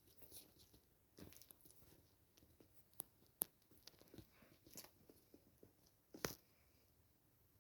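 Near silence with a few faint, scattered clicks and soft rustles; the sharpest click comes just after six seconds in.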